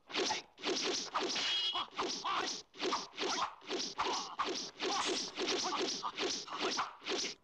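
Film sound effects of a fast sword fight: a rapid run of sharp sword swishes, two or three a second, with a brief metallic ring about a second and a half in.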